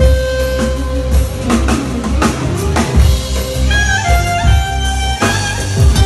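Live band music: a clarinet melody over Korg keyboard accompaniment, with heavy bass and a steady drum beat.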